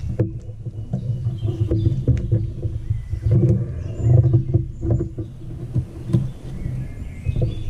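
Thin cord being pulled and wound around a log to lash it to a tree trunk, with scattered small clicks and rustles, over a steady low rumble.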